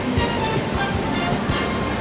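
Music playing over the noise of a Shinkansen train rolling slowly along the platform.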